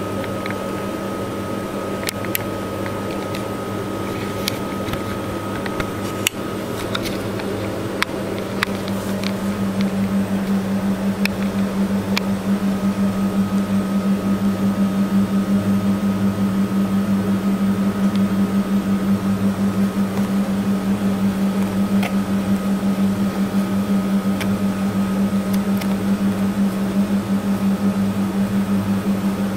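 Steady low mechanical hum of a running appliance, with a faint high whine over it, the hum growing louder about ten seconds in. A few light clicks and taps come in the first dozen seconds.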